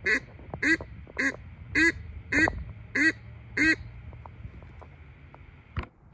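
Duck call blown in a series of seven evenly spaced quacks, about one every half-second, used as a lure for a coyote; a single sharp click follows near the end.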